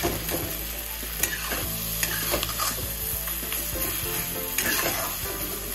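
Onion-and-tomato bhurji of crumbled ghee residue sizzling in a steel kadhai as a metal spatula stirs and scrapes it around the pan in irregular strokes.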